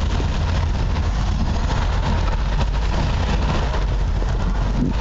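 Thunderstorm noise: a steady hiss of rain over a constant low rumble.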